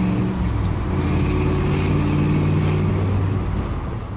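The 1981 Dodge Ram D-150's 360 cubic-inch V8 running steadily as the truck drives, heard from inside the cab. There is a short break in the engine note about half a second in, and the sound starts to fade near the end.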